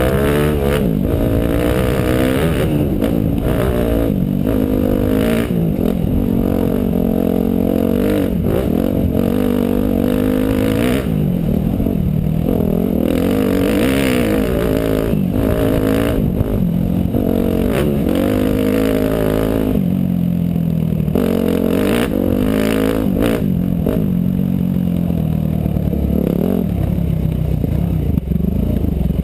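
Motorcycle engine under way, revving up and down constantly as the throttle opens and closes, with scattered knocks and clatter.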